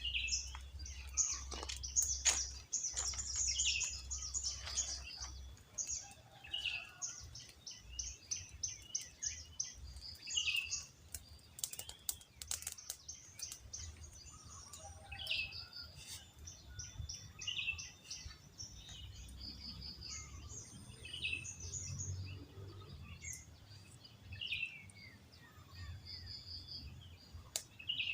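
Birds chirping with many short, high calls, one call coming back every couple of seconds. A few sharp clicks fall about twelve seconds in, over a low rumble.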